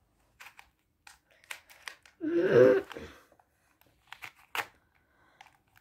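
Plastic 3x3 puzzle cube being turned by hand: scattered short clicks and clacks as its layers snap round. About two seconds in, a brief vocal sound lasting under a second is the loudest thing.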